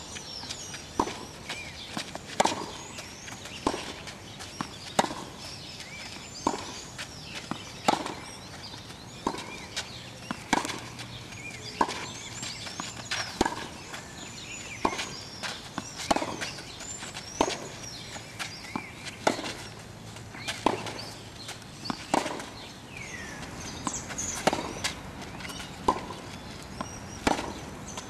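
Tennis ball struck back and forth in a steady groundstroke rally, with a sharp pock of ball on racket strings about every second and a half.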